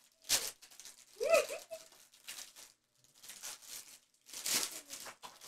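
Plastic-foil trading card pack wrappers crinkling and tearing as gloved hands open and handle them, in about five short bursts.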